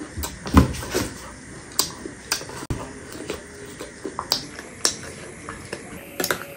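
Close-up eating sounds: crunchy chatpate, a spicy puffed-rice snack, crackling as it is chewed, with a metal spoon clicking and scraping against the ceramic bowl as it stirs and scoops. A single heavier low thump comes about half a second in.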